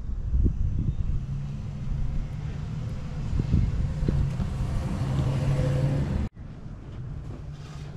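Low, steady engine rumble of a running motor vehicle, growing louder and then cut off abruptly about six seconds in, with a few faint clicks from a caulking gun.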